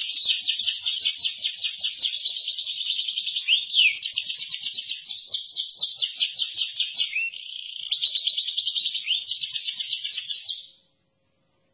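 A caged male finch sings a long song of rapid rolling trills, broken briefly twice by rising slurred notes, and stops near the end. It is the male's song calling to a female, kept and recorded as a lure for bird trapping.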